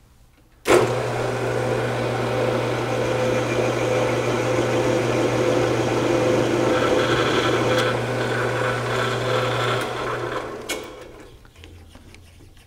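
Small metal lathe switched on suddenly, its motor running with a steady hum while a threading tool cuts a shallow groove into the spinning motor shaft. Near the end the lathe is switched off and spins down to a stop.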